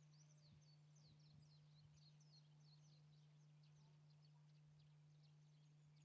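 Near silence: faint, scattered high chirps of distant birds over a steady low hum.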